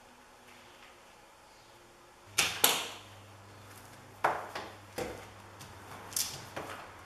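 Quick swishing strokes of a large printed sheet being rubbed and smoothed down by hand and a small plastic tool. Two strokes come together a couple of seconds in, and a run of shorter swishes follows in the second half.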